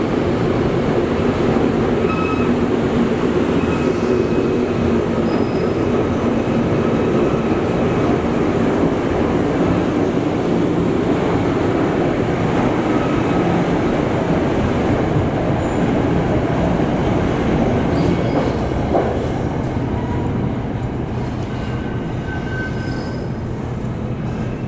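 A Metro-North train of Bombardier Shoreliner coaches rolling steadily past as it departs, with thin high wheel squeals now and then. The rumble drops off about 20 seconds in as the last car clears.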